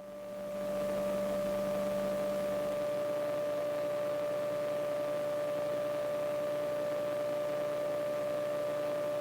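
Steady electrical hum with a high whine in an aircraft's wired audio feed, heard once the microphone goes quiet. It swells over the first second, and a lower tone drops away about two and a half seconds in.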